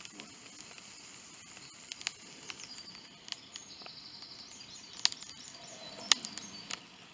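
Outdoor woodland ambience: a steady low background with insects, a short high trill from a bird or insect near the middle, and a few sharp clicks about five and six seconds in.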